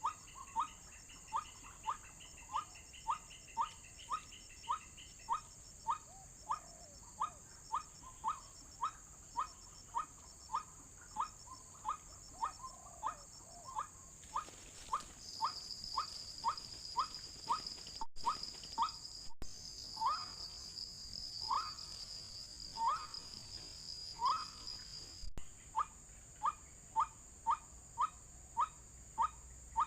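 White-breasted waterhen calls: short rising notes repeated about twice a second, growing sparser for a few seconds in the middle. An insect drones steadily and high over the middle part, over a constant background hiss of insects.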